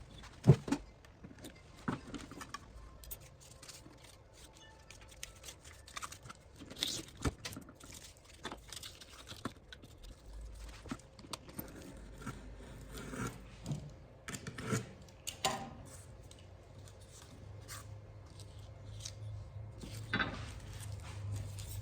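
Paper birch bark being cut and handled into veneer strips: irregular snips, rustles and small scrapes. A faint low hum comes in near the end.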